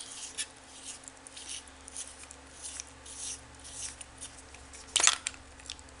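Light metal rubbing and scraping as an adjustment collar is worked off an aluminium bicycle hub and the through axle is slid out, with one sharp metallic click about five seconds in.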